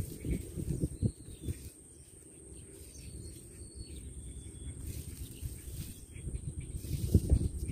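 Outdoor ambience by a pond: faint short bird chirps over a steady high-pitched whine, with a low rumbling, crackling noise that fades about two seconds in and comes back near the end.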